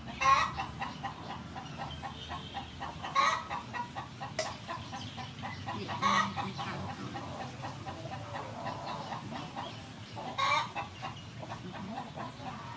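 Chickens clucking repeatedly, with four louder calls spread through.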